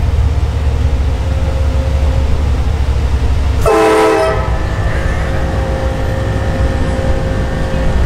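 Train horn mounted on a truck sounding a loud chord of several tones, starting suddenly about halfway through and strongest for under a second, over the steady low rumble of the truck's engine.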